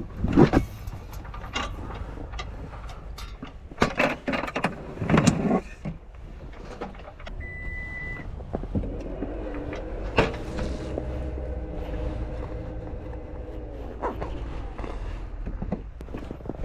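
Gear knocking and clattering as it is handled in an SUV's cargo area. Then comes a short high beep and a steady motor hum lasting about five seconds, the sound of a power liftgate closing.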